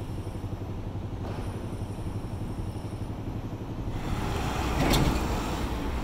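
Low rumble of city traffic, then from about four seconds in a truck passing close, growing louder, with a brief clatter about five seconds in.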